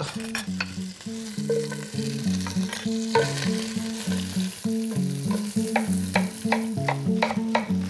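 Shellfish pieces sizzling in butter in a stainless steel sauté pan while being stirred, with many sharp clicks of shell and utensil against the pan.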